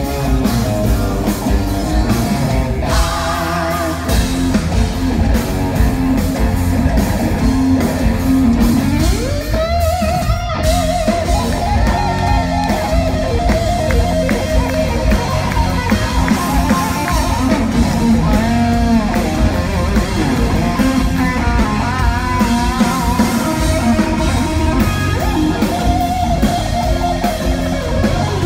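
Hard rock band playing live and loud: a lead electric guitar solo with sliding, wavering notes over drum kit, bass and keyboards.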